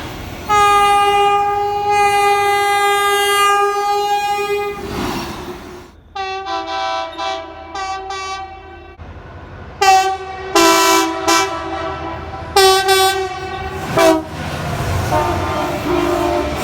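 Train air horns sounding. First a single-note horn gives one long steady blast. Then a different, multi-note horn chord sounds in a series of short and longer blasts, with the train's rumble under it near the end.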